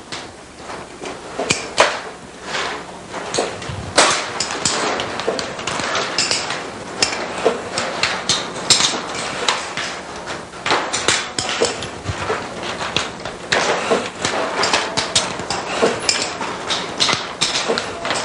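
Steady factory clatter of metal on metal: many irregular clinks and knocks, several a second, as steel pliers are handled and packed.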